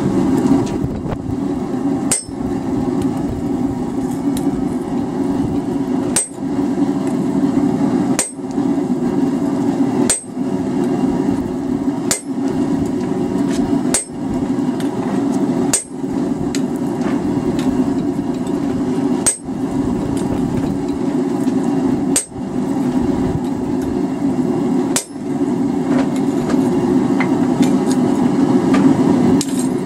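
A hand hammer strikes a handled fullering tool held on the hot steel blank on the anvil, driving a groove. The blows come at a slow, even pace of about one every two seconds, over a steady low drone.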